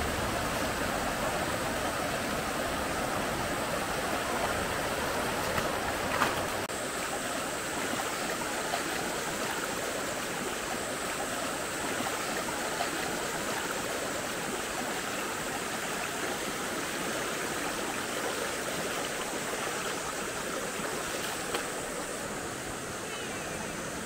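Shallow rocky mountain stream rushing over stones in a steady, even wash, with a couple of brief splashes about six seconds in.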